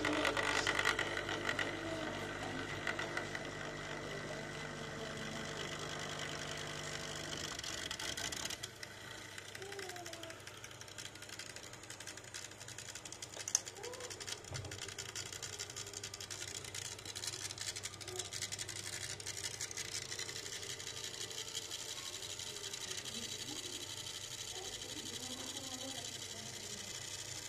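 Grundfos circulation pump motor of a Demirdöküm Nepto combi boiler running with a loud, steady mechanical hum made of several held tones: the noise of a failed pump motor. About eight seconds in the hum cuts off, leaving a quieter background.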